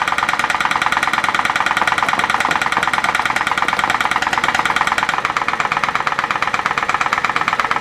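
PMR 1B1 1880's steam drilling engine, a 1-inch-bore double-acting horizontal model steam engine, running steadily on steam with a rapid, even beat.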